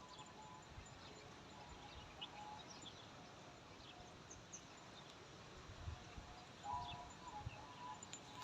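Faint rural outdoor ambience with scattered short, high bird chirps and a few soft low thumps.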